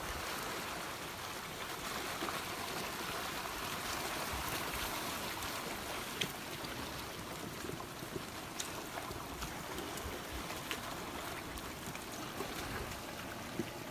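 Floodwater rushing in a steady, even wash of noise, with a few faint sharp knocks now and then.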